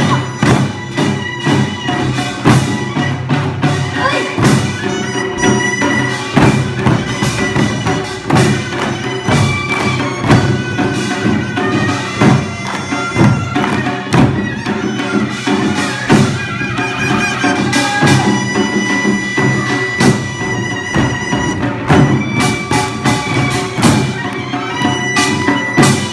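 Korean traditional instrumental music: a sustained, held melody over frequent, steady drum strokes.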